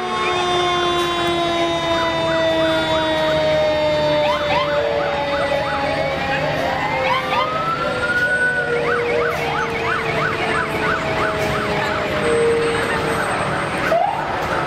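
Several fire truck sirens sounding at once: long wail tones slowly falling in pitch, one wail rising about the middle, and a rapid yelp, about two or three sweeps a second, from about nine seconds in.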